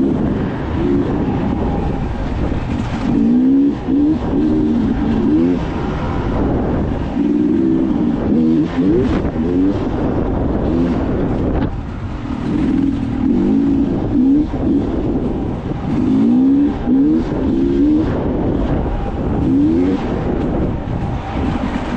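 Engine of an off-road vehicle running under load, its pitch climbing in repeated short rising revs with breaks between them, over a continuous rumble.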